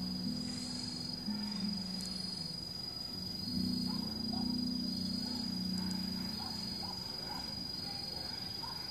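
Crickets: a steady high trill with a fainter chirp pulsing beneath it about once a second, over a low hum that steps between two pitches and swells in the middle.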